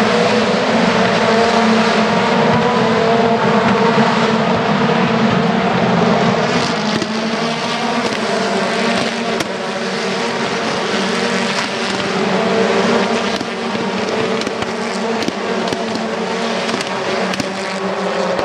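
A pack of British Touring Car Championship cars racing past at speed, their 2.0-litre turbocharged four-cylinder engines at high revs, many engine notes overlapping in a steady, loud blend.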